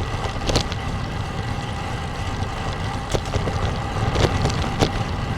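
Wind buffeting the microphone of a bicycle-mounted camera, with road noise, while riding a road bike in a strong gusty wind. A few short, light clicks come through the steady rumble.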